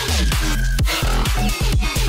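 Electronic dance music with a steady beat of deep bass kicks.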